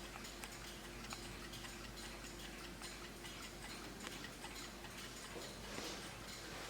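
Vintage 1960s Schatz Elexacta ceramic wall clock with kitchen timer, its movement ticking softly and evenly.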